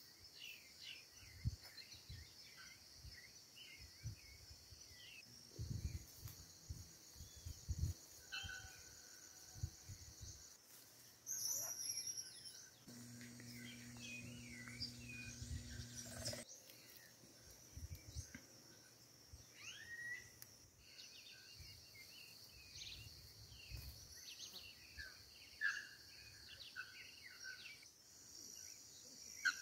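Forest ambience: a steady high insect drone with many short bird chirps and calls over it, and scattered low bumps. A low hum joins in about halfway and cuts off suddenly.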